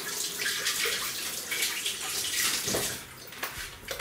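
Kitchen tap running, with water flowing over a hand being rinsed under it: a steady noisy hiss of water.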